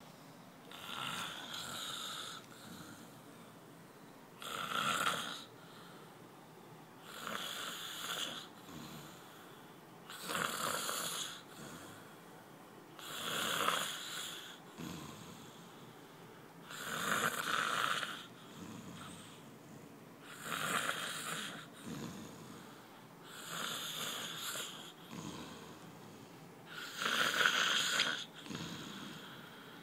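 A man snoring loudly in his sleep: nine snores, one roughly every three seconds.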